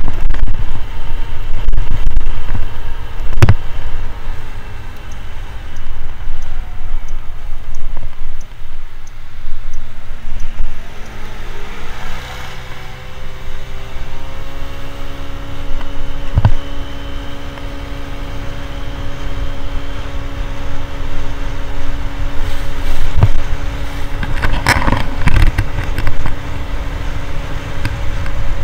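Motor scooter engine running under heavy wind rumble on the microphone; the engine note falls away as it slows, rises as it accelerates about ten seconds in, then holds steady at cruising speed. A few sharp knocks come through along the way.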